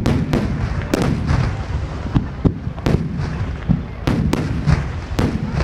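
Aerial firework shells bursting in quick succession: about ten sharp bangs over a continuous low rumble.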